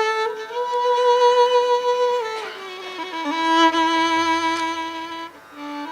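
Violin playing a slow melody of long held notes, sliding between pitches with a falling glide a little over two seconds in; a low drone joins about halfway through.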